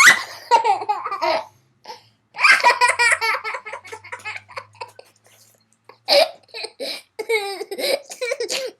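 Young children laughing in three bouts of giggling and belly laughter, broken by short gaps.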